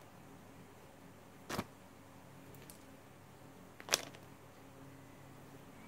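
Sharp camera-shutter clicks: one about a second and a half in and a louder one at about four seconds, with a fainter double tick between them. Under them runs a faint steady hum.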